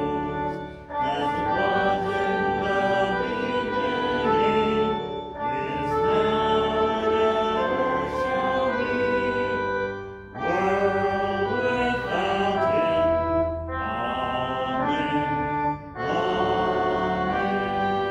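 Church music: voices singing a slow piece with instrumental accompaniment, in held-note phrases broken by short pauses.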